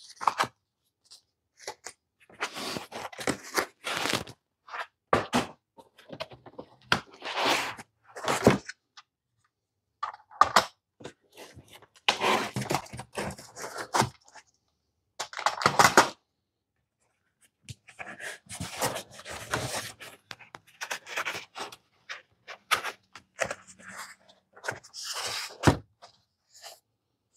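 Unpacking: foam packing inserts scraping and rustling in a cardboard box as black metal rails are pulled out and laid on a table, in irregular bursts with knocks and one sharp knock near the end.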